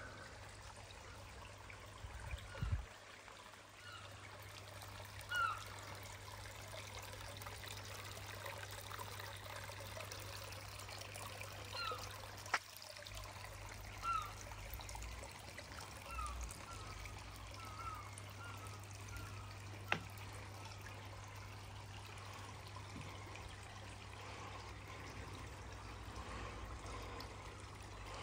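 Water trickling steadily in a garden koi pond, with short chirps scattered through it.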